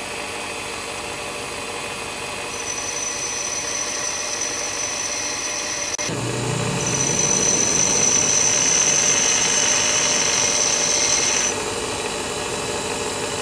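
Bench grinder running with a high-speed steel lathe tool bit pressed against the grinding wheel, a high grinding hiss coming and going as the bit is held to the stone. The grinding is loudest from about six seconds in until it drops off near eleven and a half seconds.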